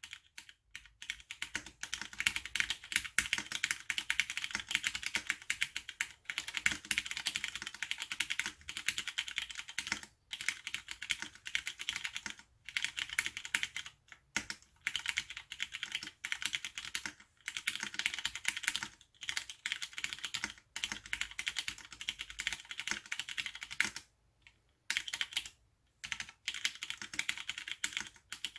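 Fast, continuous typing on an AR87 mechanical keyboard with tactile Cherry MX Brown switches: a dense run of keystroke clacks, broken now and then by short pauses.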